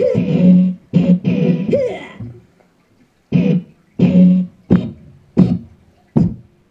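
Electronic keyboard playing notes in an odd novelty voice: a jumble of notes over the first two seconds, then five separate struck notes, each dying away, about three-quarters of a second apart.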